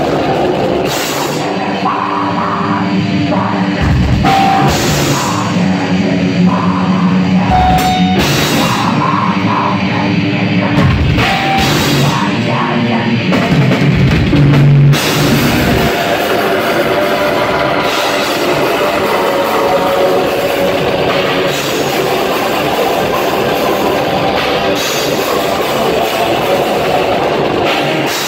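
Heavy metal band playing live: distorted electric guitars and a drum kit, stop-start riffing with short breaks for about the first fifteen seconds, then continuous full-on playing.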